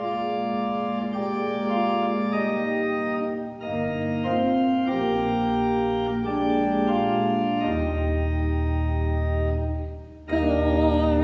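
Organ playing slow sustained chords that change every second or so, with deep bass notes joining about three-quarters of the way through. After a brief dip near the end it comes back fuller, with a wavering tone.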